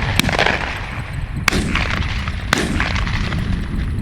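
Three shotgun shots about a second apart, each a sharp crack with a short tail, over a steady low rumble.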